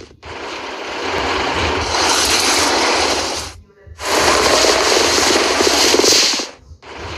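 Two loud bursts of rattling, engine-like noise, each about three seconds long, split by a brief gap a little past the middle.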